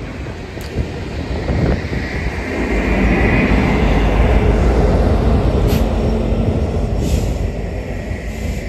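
Coal train's cars rolling past on the rails: a steady, heavy rumble that swells to its loudest in the middle.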